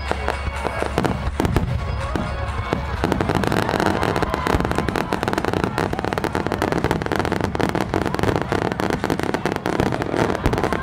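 Aerial fireworks bursting in rapid succession, with bangs and crackling. The bursts become a dense, continuous barrage about three seconds in.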